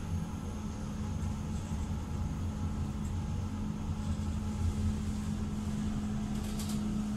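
KONE passenger lift travelling down the shaft: a steady hum over a low rumble as the car moves.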